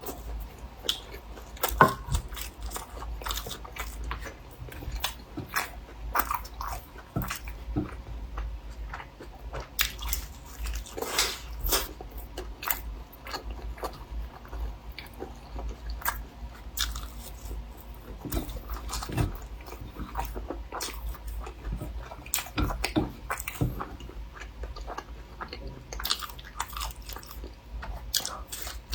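A person biting and chewing food close to the microphone, with irregular short clicks and crunches throughout.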